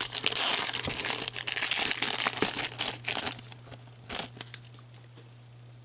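Foil wrapper of an Upper Deck hockey card pack being torn open and crinkled by hand, a dense crackling for about three seconds, then a short rustle about four seconds in.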